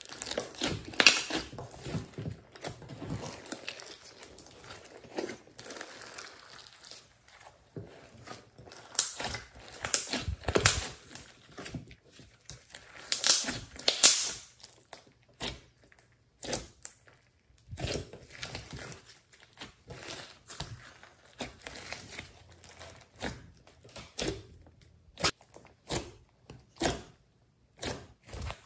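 Slime being kneaded and squeezed by hand, giving a run of wet crackles and pops. Later the pops come one at a time and further apart as fingers press into the flattened slime.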